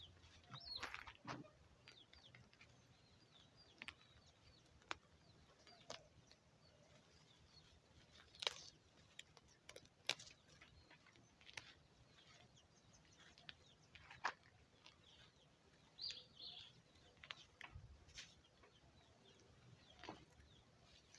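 Faint, scattered clucking of backyard chickens, with short soft clicks every second or two.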